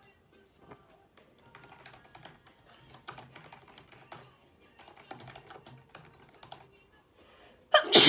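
Typing on a computer keyboard: irregular runs of light key clicks with short pauses. Near the end a sudden loud sneeze bursts out.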